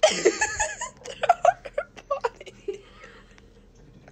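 Young women laughing, loudest in a burst right at the start and breaking into shorter laughs that trail off after about two seconds.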